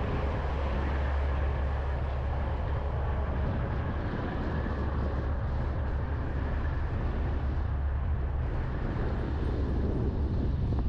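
A vehicle engine running steadily with a low rumble as it rolls slowly across a paved lot, over a constant haze of road and air noise.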